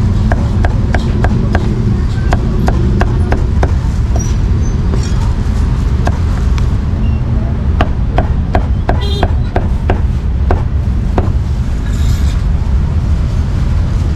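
Heavy cleaver chopping roast meat on a thick round wooden chopping block: a run of sharp knocks at about three a second, thinning out in the middle and stopping a few seconds before the end.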